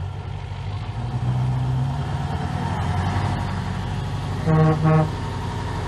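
Classic Scania truck's diesel engine running as the truck pulls away, with two short horn toots about four and a half seconds in.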